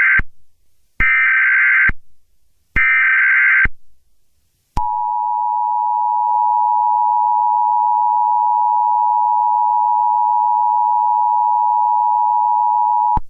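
Emergency Alert System tones: the end of one SAME header burst and then two more, each a second-long blast of buzzing digital data, followed about five seconds in by the steady two-tone EAS attention signal, held for about eight seconds and cutting off suddenly near the end.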